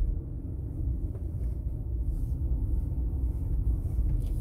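A car driving at steady speed: a low, even rumble of road and engine noise.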